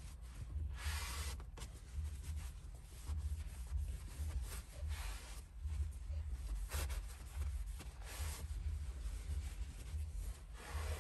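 Microfiber towel wiping over a screen protector film on a car's dash touchscreen, several short swishing strokes a second or two apart, over a steady low hum.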